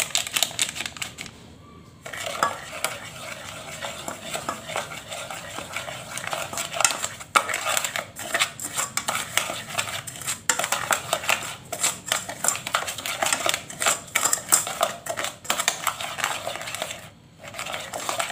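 Silicone spatula stirring and scraping a thick mix of agar powder, sugar and egg around a stainless steel saucepan: a fast, uneven run of scrapes and clicks against the pot, pausing briefly about a second in and again near the end.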